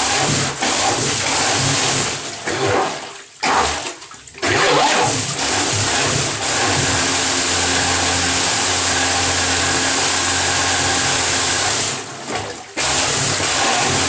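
Electric 53 mm jet drive unit running submerged in a bathtub at about half throttle: the motor hums steadily under the noise of the jet churning and splashing the water. It surges and dips a few times in the first few seconds, then holds steady, drops out briefly about twelve seconds in, and picks up again.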